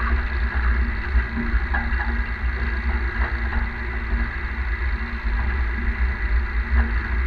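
Tractor pulling a trailed field sprayer across a field, heard from the sprayer's boom: a steady low engine drone under a heavy rumble, with occasional light rattles and clicks from the boom.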